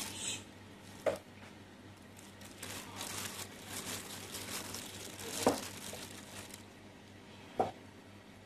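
Thin plastic glove crinkling and rustling as a hand works into flour and eggs in a steel pot. Three short sharp taps come about one second in, past the middle and near the end.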